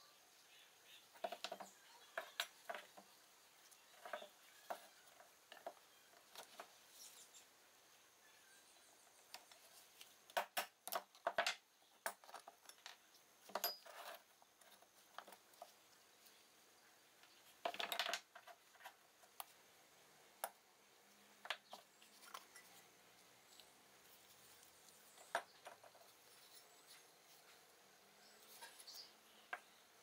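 Scattered clicks and clanks of aluminium moka pot parts and hand tools being handled and set down on a wooden tabletop, with a cluster of sharper knocks about ten to twelve seconds in.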